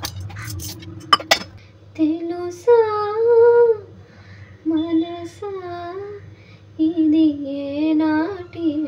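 A woman singing a song to herself in long, held, wavering phrases, after a few clinks of steel kitchen containers in the first second or so.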